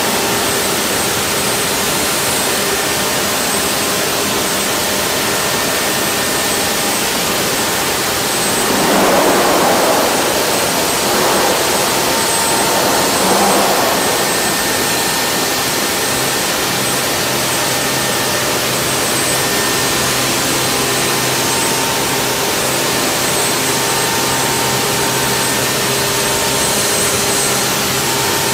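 Steady loud industrial noise from aluminium plant machinery: an even rushing hum with a faint high whine. It swells three times, between about 9 and 14 seconds in.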